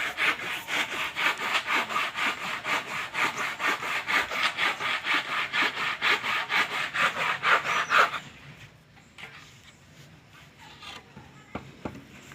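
Hand saw cutting with quick, even back-and-forth strokes, stopping abruptly about eight seconds in. A few faint knocks follow.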